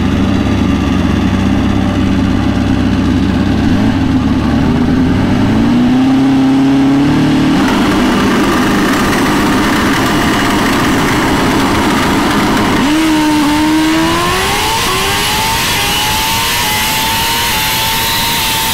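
Drag-racing motorcycle engines during a drag-strip pass, including a turbocharged Suzuki GSX-R1000. The engines run steadily for about four seconds, then the revs climb. More rising engine tones come through in the second half.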